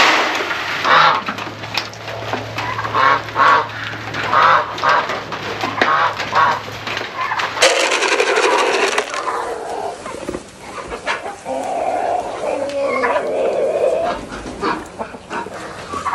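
Farm poultry calling over and over in short, repeated calls. About eight seconds in the sound cuts to another recording of lower, longer calls.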